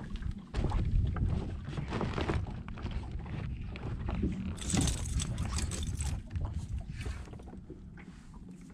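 Wind buffeting the microphone on the open bow of a bass boat, a steady low rumble, with scattered light knocks and a brief hiss about five seconds in.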